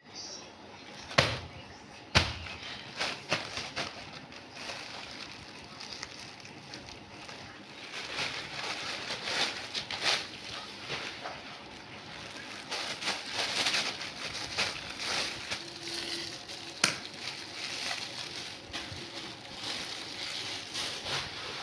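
Parcel packaging rustling and crackling as it is unwrapped by hand, with sharp knocks about a second in, two seconds in, and again near the end.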